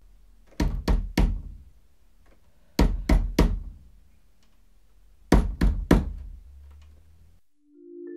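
Knocking, most likely on a door: three quick knocks, repeated three times about two and a half seconds apart.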